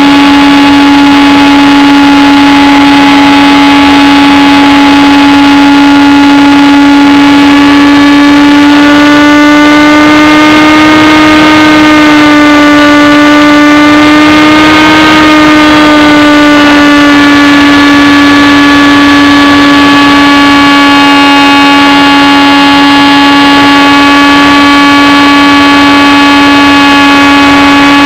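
HobbyKing Bixler's 2200 kV brushless electric motor and pusher propeller whining steadily. Its pitch rises a little about a third of the way in, then eases back down.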